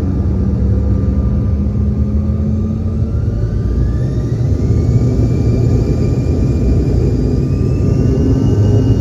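Bombardier CRJ-700's twin GE CF34 turbofan jet engines spooling up for takeoff: a steady low rumble under a whine that rises in pitch from about two seconds in, then levels off.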